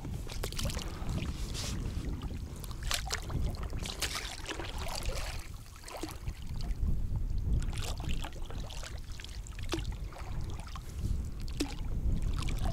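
A small boat out on choppy water in the wind: a steady rumble of wind on the microphone, with scattered knocks and splashes of water against the boat.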